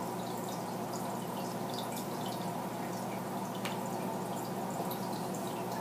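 Faint, irregular water drips and plinks over a steady low electrical-sounding hum.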